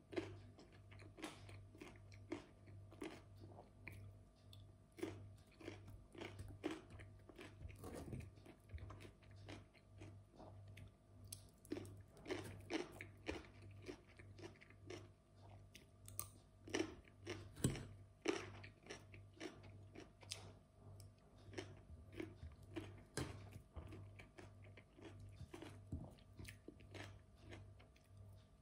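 Close-miked chewing of crunchy raw cucumber slices: a run of short crisp crunches following quickly one after another, with a faint steady electrical hum underneath.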